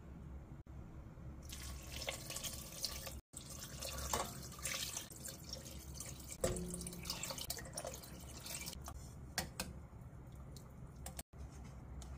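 Water poured from a glass measuring cup into a stainless steel pot of tofu cubes and seaweed, splashing and trickling, starting about a second and a half in.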